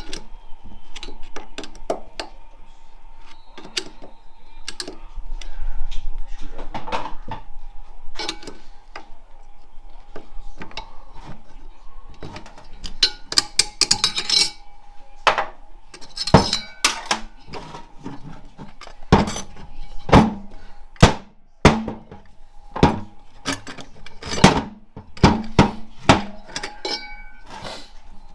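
Steel transmission parts clinking and knocking as a 4L65E automatic transmission is taken apart by hand: clutch-pack pieces and plates handled and set down on a bench. The clinks come irregularly, with the sharpest knocks in the second half.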